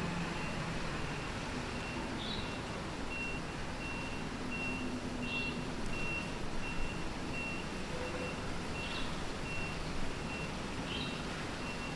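A vehicle's reversing alarm beeping about twice a second, one steady high tone, stopping near the end, over the constant hum of street traffic.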